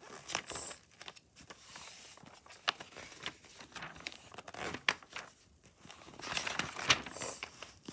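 Paper pages of a picture book rustling and crinkling as they are handled and turned by hand, in irregular soft scrapes with a few sharp flicks.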